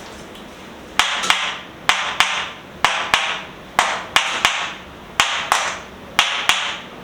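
Sharp percussive knocks, mostly in quick pairs about a second apart, starting about a second in: strikes delivered to the patient's body during a chiropractic treatment.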